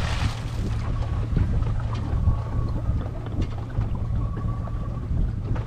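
Steady low rumble of an idling boat engine with wind buffeting the microphone. The splash of an anchor dropped over the bow trails off right at the start.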